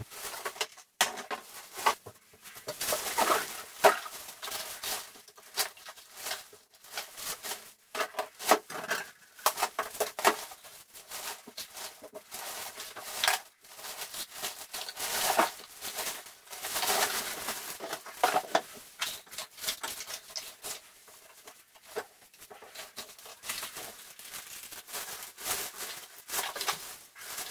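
Black plastic garbage bag rustling and crinkling, with an irregular light clatter of rubbish being picked up off the floor and dropped into it.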